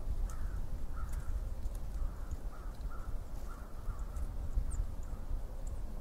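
Outdoor ambience of a low, constantly fluctuating rumble, with distant birds giving a string of short calls every half second or so and a few high chirps.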